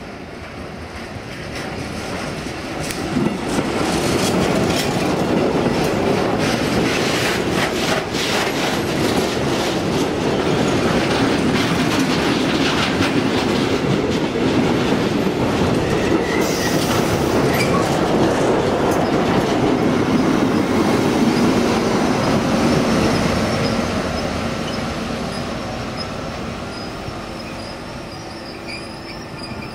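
Freight train passing, its wagons' wheels rumbling and clattering over the rail joints. The sound builds over the first few seconds, stays loud, and fades away over the last several seconds.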